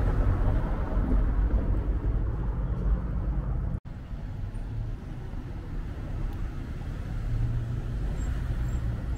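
Street traffic ambience: cars running along a road, heard as a steady low rumble. The sound cuts out suddenly about four seconds in and comes back quieter.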